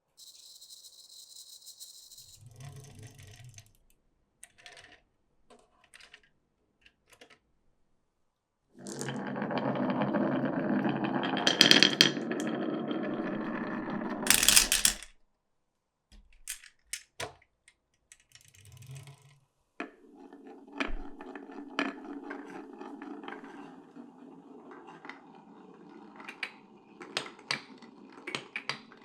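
Glass marbles rolling and clattering through a wooden marble run. Scattered clicks and knocks, then a loud stretch of rolling from about nine seconds in that ends in a sharp knock, and a steadier run of rolling with frequent clicks through the last third.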